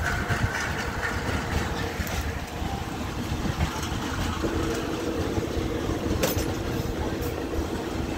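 Passenger train running at speed, heard from an open coach door: a steady rumble of wheels on the rails with wind noise. A steady hum joins about halfway through, and a single sharp click comes about six seconds in.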